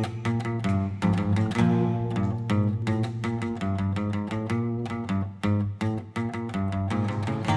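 Background music led by guitar, with quick, regularly spaced notes.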